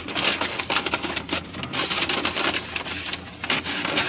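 Paper takeout bag crinkling and rustling as hands open it and dig inside, in irregular crackles, over a steady low hum.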